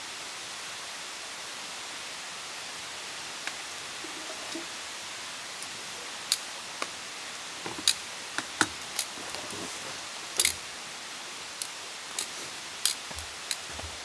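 Wood campfire crackling, sharp pops coming every fraction of a second from about six seconds in, over a steady hiss.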